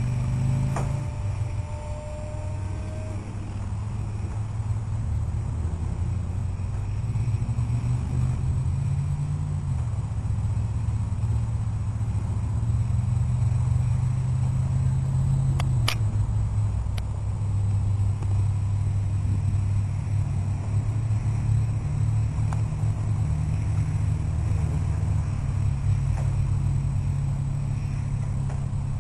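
Steady low rumble of wind buffeting the camera microphone, swelling and easing, with a sharp click about a second in and another about halfway through.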